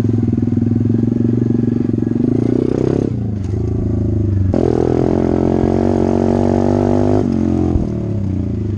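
SSR 125 TR pit bike's 125cc four-stroke single-cylinder engine running under throttle while being ridden, its pitch dropping about three seconds in, jumping up and holding steady at about four and a half seconds, then dropping again after seven seconds.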